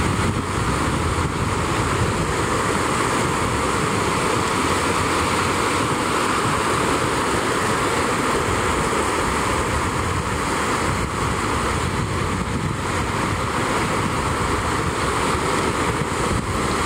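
Small waves breaking and washing up the shore in a steady wash of surf, with wind buffeting the microphone.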